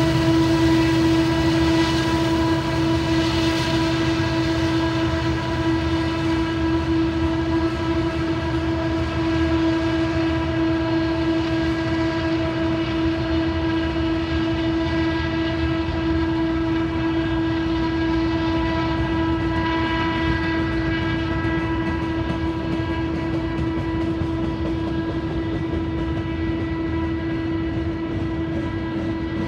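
Long, heavy freight train rolling past on a curve, the cars giving a steady high-pitched squeal throughout. Under it, the deep running of two mid-train diesel locomotives working hard up the grade fades over the first few seconds.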